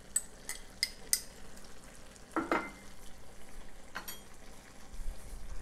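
Pan of green beans and tomatoes sizzling gently on the stove, with a few light clicks as sliced garlic drops in near the start. A brief louder knock comes about halfway through and a small metal clink about a second and a half later.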